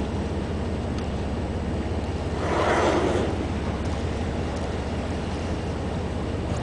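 Blue whale's blow: one loud rushing exhale lasting about a second, a little over two seconds in. It sounds over the steady low hum of the boat's engine.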